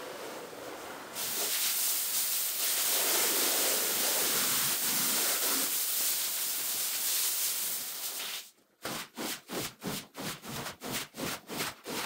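A spray hissing steadily as a carpet is sprayed during cleaning; the spray cuts out and gives way to quick rhythmic strokes worked over the carpet, about three a second.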